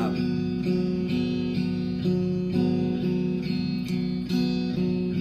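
Guitar strumming a repeated chord pattern in an even rhythm, as an instrumental break between sung lines.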